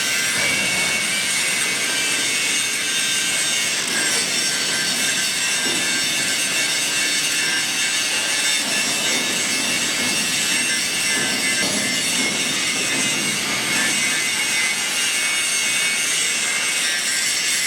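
Hoprio 7-inch brushless angle grinder running under load, its disc grinding steadily against the work with an even, hissing rasp and a few steady high tones.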